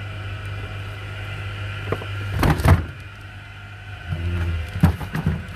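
Steady appliance motor hum that stops about three seconds in, with knocks and plastic clatter from freezer drawers being handled.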